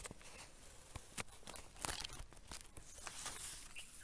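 Handling noise: rustling and many sharp clicks as a phone is moved about close to its microphone, loudest around the middle.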